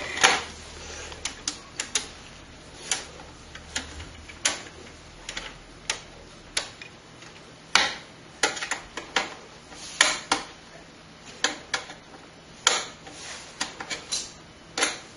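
Irregular sharp clicks and light taps of small metal hardware and tools being handled in and around a desktop PC case during disassembly, some coming in quick clusters.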